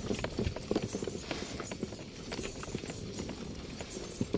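Camel-drawn cart moving along a sandy dirt track: a steady run of irregular knocks and clatter from footsteps and the rattling cart.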